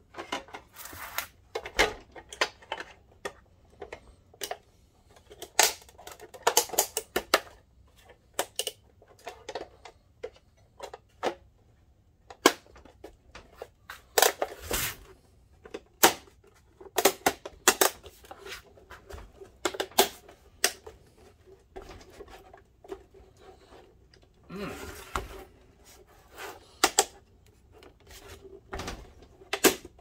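Irregular sharp plastic clicks and knocks from the Dell 1650 projector's black plastic housing as cover panels are pressed and snapped back into place by hand, with a brief scraping rub about 25 seconds in.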